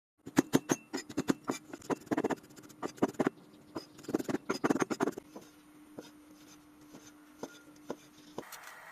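Irregular sharp clicks and knocks in quick clusters for about five seconds, then sparser single taps, over a faint steady hum. These are kitchen handling sounds during food preparation.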